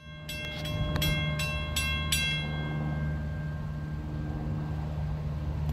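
Railroad grade-crossing bell ringing, six evenly spaced strikes about three a second, then stopping a little over two seconds in as the gates rest fully down. A steady low engine drone continues underneath.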